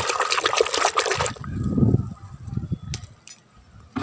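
A hand sloshing and splashing through soapy water in a plastic bucket; the splashing stops about a second in, leaving only a few soft low thuds.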